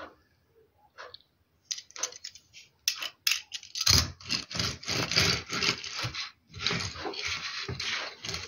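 A few light clicks as a small die-cast model car is handled, then from about four seconds in a dense scraping rustle with many quick strokes as the car is pushed to and fro across a glossy paper magazine.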